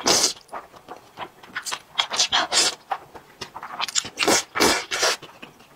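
A person slurping thick, sauce-coated stir-fried noodles: a run of short wet slurps, about two a second.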